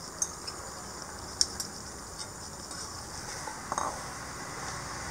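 Metal spoon clinking a few times against a bowl and a pan as potato and brinjal gravy is scooped and stirred, over a faint steady hiss.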